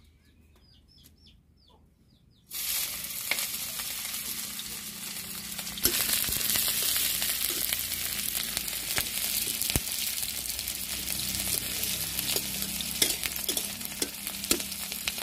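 Sliced onion and green chilli frying in oil in a metal kadai, a steady sizzle with the clicks and scrapes of a steel spatula stirring them. The sizzle starts suddenly a couple of seconds in, after a quiet stretch with a few bird chirps, and grows louder a few seconds later.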